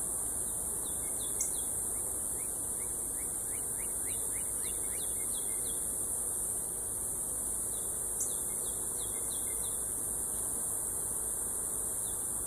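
Steady high-pitched insect drone, with a bird singing runs of short falling chirps several times over it. Two brief sharp ticks, about seven seconds apart.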